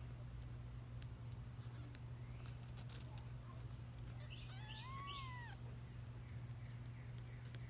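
A week-old kitten gives one thin mew that rises and falls, about five seconds in, with faint high squeaks around it. A steady low hum runs underneath.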